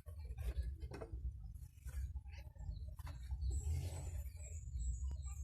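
Scattered light clicks and knocks of hand tools working loose the valve cover of an Isuzu 4HF1 diesel engine, over a steady low hum, with faint bird chirps in the middle.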